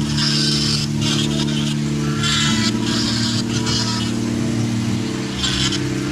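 Dremel rotary tool running with a steady whine while its burr grinds into MDF in short, scratchy passes. The motor's pitch steps up about two and a half seconds in.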